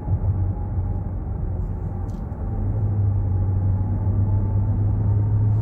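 Car engine drone and road noise heard from inside the cabin while driving: a steady low hum that grows louder about halfway through.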